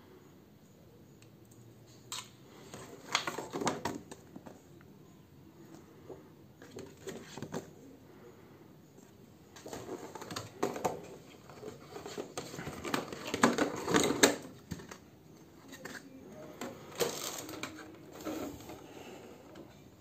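Clear plastic clamshell packaging and its paper liner being handled, crinkling and clicking in irregular bursts, loudest about two-thirds of the way through.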